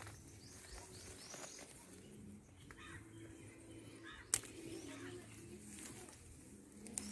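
Faint bird calls in a garden, with one sharp snap about four seconds in as a moringa stem is broken off by hand.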